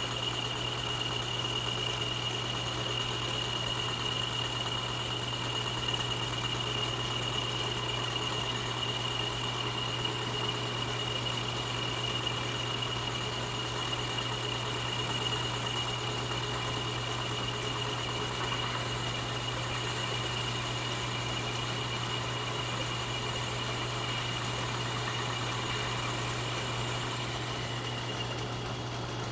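Metal lathe running with a boring bar taking a light cut, about ten thousandths, in a motor housing's bearing bore: a steady machine hum with a thin, constant high whine.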